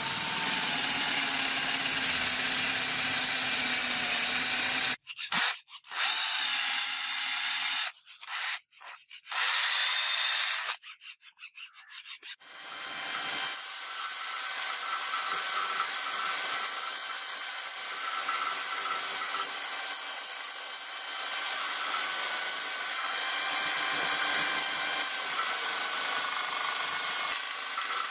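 Sanding: a steady, hissing abrasive rub with a faint whine in it. It stops and restarts several times in the middle, then runs on steadily.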